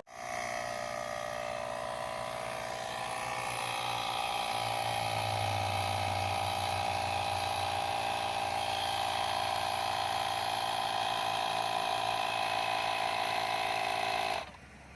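AUTO-VOX 300 PSI 12-volt portable air compressor running steadily, a small electric motor and piston pump with an even hum. It shuts off suddenly near the end.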